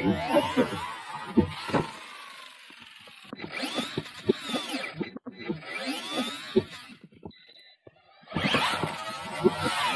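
Losi LMT RC monster truck's brushless electric motor whining up and down in pitch as it is revved in bursts, with the tyres spraying snow. The truck goes almost quiet for about a second around seven seconds in, then revs again.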